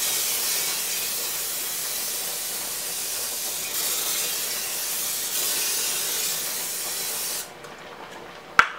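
Aerosol can of Pam cooking spray hissing in one long continuous spray of about seven seconds, coating the inside of a slow cooker's crock, then cutting off. A single sharp knock comes near the end.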